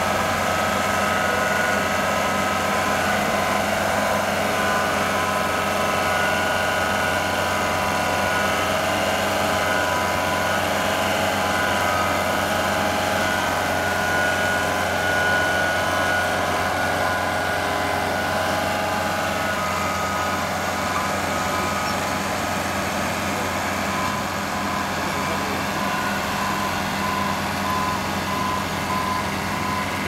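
Engine of a Layton Remote-Trax tracked mobile-home mover running steadily under load as it pushes a manufactured home into place. Several steady tones sit over the engine note, and a short tone repeats evenly in the last few seconds.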